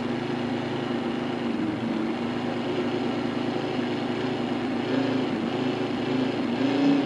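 Countertop blender motor running steadily, pureeing peppers and garlic with water.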